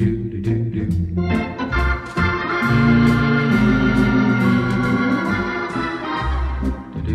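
Background music: sustained organ chords over a steady beat.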